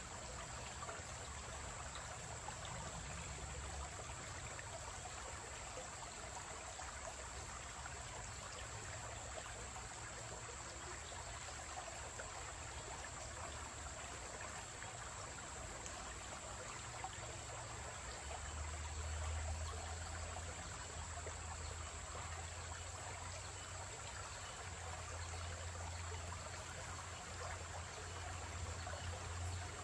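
Shallow, rocky creek trickling steadily over stones. A low rumble swells in about two-thirds of the way through and again near the end.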